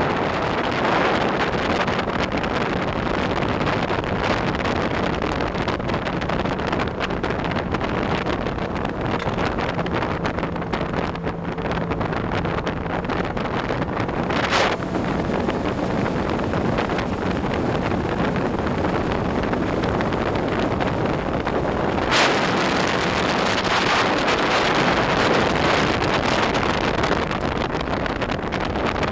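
Sea-Doo Speedster jet boat running over the water, its engine hum buried under heavy wind noise on the microphone. Two sharp knocks come about 15 and 22 seconds in.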